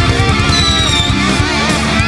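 Background rock music with electric guitar and a steady beat.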